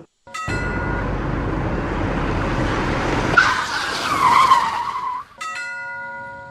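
Vehicle sound effects: a steady rushing run with a low rumble, then a high squeal that slides down in pitch for about two seconds, like a skid. Near the end comes a chord of steady tones that slowly fades.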